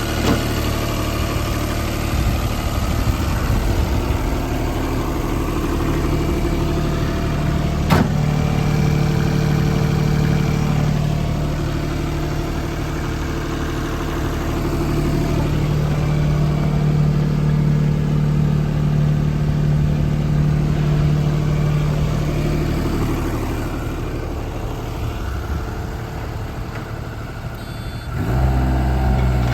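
JCB 18Z-1 mini excavator's diesel engine running steadily, its note shifting in pitch and strength a few times. There is a sharp click about eight seconds in.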